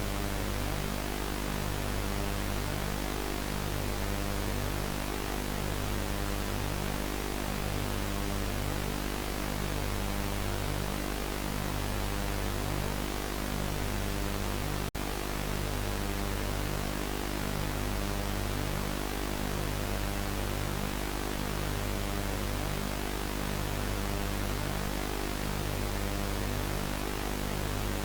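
Background music: a steady, droning electronic track under a constant hiss like static. It cuts out for an instant about halfway through.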